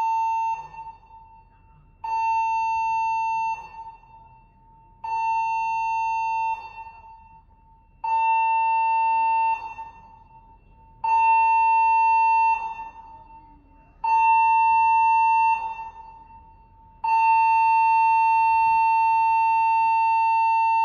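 The cruise ship Norwegian Epic's alarm system is being tested, sounding one steady, echoing tone. It gives short blasts about every three seconds, then a long continuous blast begins near the end. This short-blasts-then-one-long pattern is the shipboard general emergency alarm signal.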